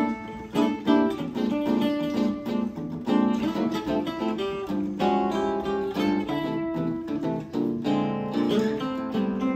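Two Benedetto archtop guitars, La Cremona Azzurra and a 16-B, played together as a duet of plucked chords and single-note lines.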